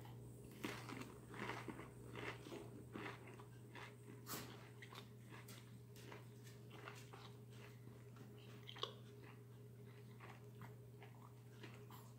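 A man chewing a tough, chewy piece of canned fried mackerel: faint, irregular mouth clicks and smacks, busiest in the first few seconds, over a low steady hum.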